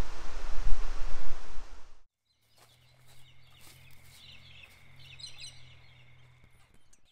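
Loud rushing wind noise buffeting the microphone, which cuts off about two seconds in. Then faint birds chirping several times over a quiet steady low hum.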